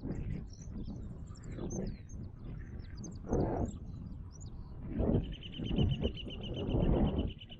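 Wild birds chirping with short high calls, joined about five seconds in by a rapid trill of about eight notes a second. Under them come repeated low rushing swells every second or two, louder than the birds.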